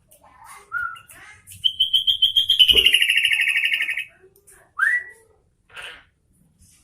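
Sooty-headed bulbul (kutilang) singing: a short whistled note, then a long, loud, rapid trill lasting about two seconds that drops slightly in pitch. A quick rising whistle follows about five seconds in.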